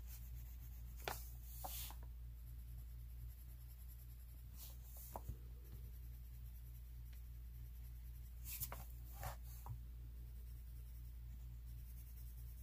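Light blue coloured pencil scratching softly over paper in small circular strokes, with a few slightly louder scrapes. A steady low electrical hum sits underneath.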